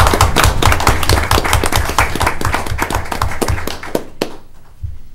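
Audience applauding: dense clapping that thins out and stops about four seconds in.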